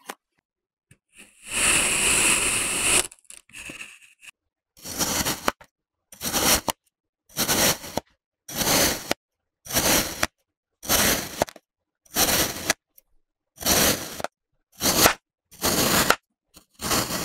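Kinetic sand being cut with a crunchy scraping sound: one long stroke a second or so in, then a steady run of about a dozen short crunching cuts, roughly one a second, with silent gaps between them.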